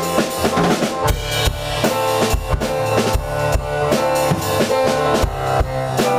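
Electronic keyboard and an acoustic drum kit playing an instrumental song together: a steady drum beat under held keyboard chords and low notes.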